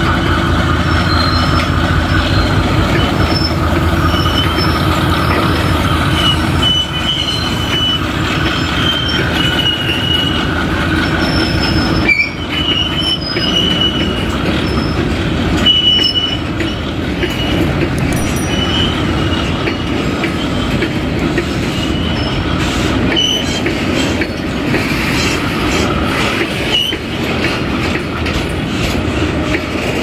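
Loaded BTPN tank wagons of a freight train rolling past, with wheels clattering on the rails and short high-pitched wheel squeals coming again and again. The low hum of the GE WDG-6G diesel locomotive hauling them fades out in the first several seconds as it pulls away.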